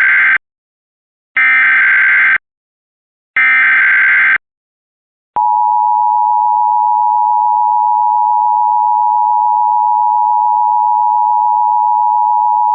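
Emergency Alert System header broadcast over FM radio: the end of one SAME digital data burst, then two more of these harsh, buzzing bursts, each about a second long with about a second between. A little after five seconds in, the two-tone EAS attention signal (853 Hz and 960 Hz sounded together) starts and holds steady, heralding a tornado warning.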